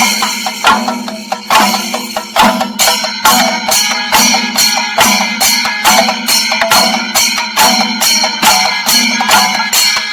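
Singari melam percussion: chenda drums with elathalam hand cymbals playing a driving rhythm over a steady held tone. The strokes tighten to about two a second a couple of seconds in.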